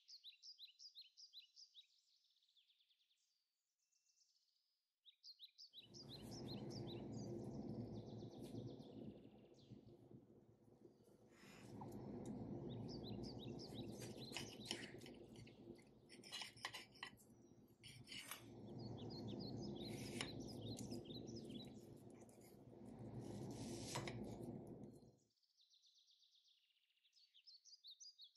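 Small birds chirping in quick repeated trills, over a steady low rushing noise that comes in about six seconds in and drops away near the end. Scattered light clinks sound in the middle stretch.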